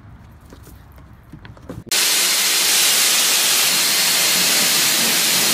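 Hair dryer blowing on a dog, a loud, steady rushing hiss of air that starts suddenly about two seconds in. Before it there are only faint, quiet sounds.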